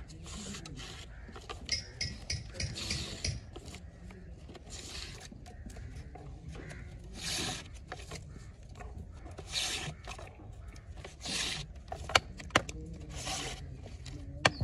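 Repeated rasping, rubbing strokes, each under a second, coming about every two seconds, with two sharp clicks near the end.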